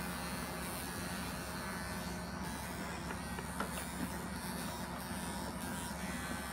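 Cordless electric animal clipper running with a steady motor buzz as its blade shears through German angora rabbit wool.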